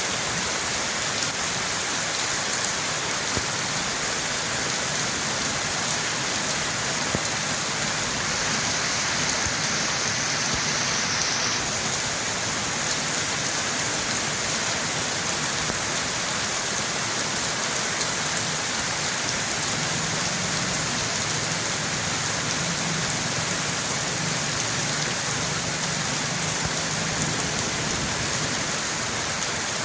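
Steady rain falling on surfaces, an even hiss with no let-up.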